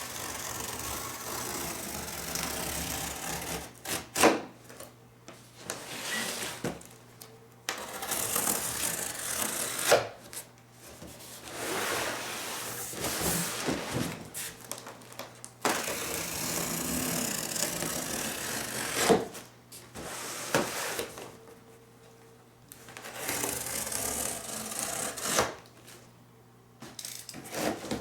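A blade is slicing through the corrugated cardboard of a shipping box along its cut line. Several long scraping strokes of a few seconds each are broken by sharp knocks and short pauses.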